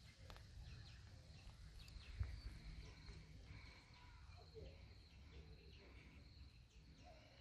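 Faint open-air ambience: scattered bird chirps over a low rumble, with a single bump about two seconds in.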